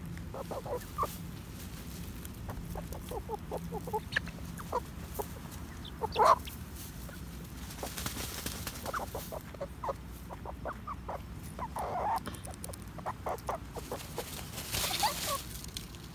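Young chickens clucking softly in many short calls while dust bathing, with spells of rustling as they shake dirt through their feathers, about eight seconds in and again near the end.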